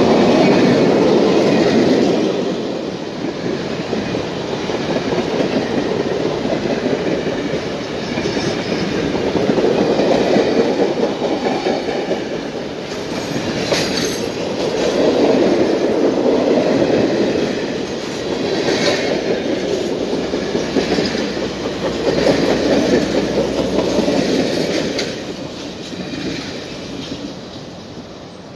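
Heavyweight passenger coaches rolling past on jointed track: a continuous rumble of steel wheels on rail with clickety-clack, swelling and easing several times as the cars go by, with a few sharp clicks. It fades over the last few seconds as the end of the train passes.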